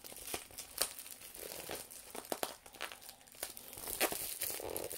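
Plastic packaging film crinkling and rustling as it is handled, in many irregular sharp crackles.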